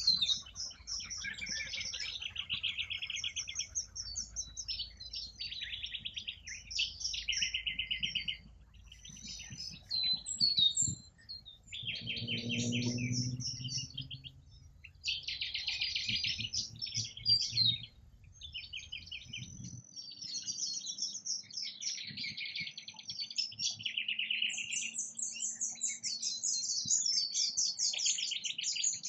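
A chorus of birds chirping and chattering in fast, high, rapidly repeated notes, with calls overlapping and following one another almost without pause. A faint low hum underneath stops about two-thirds of the way through.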